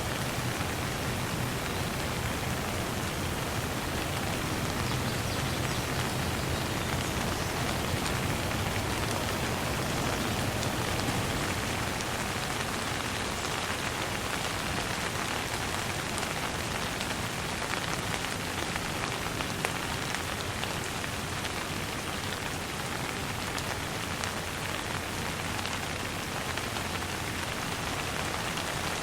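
Light rain falling steadily, an even hiss of drops with a low rumble underneath that is a little stronger in the first half.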